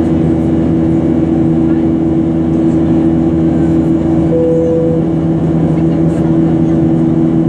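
Boeing 737-800 cabin noise from a window seat: steady engine drone and airflow with several low humming tones. A brief high tone sounds about four seconds in, lasting under a second.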